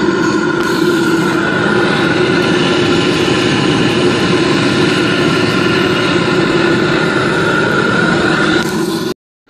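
Homemade bucket furnace fired by a gas burner, burning steadily with a loud roar and a constant resonant hum while it heats aluminium to melt it. The sound cuts off suddenly just before the end.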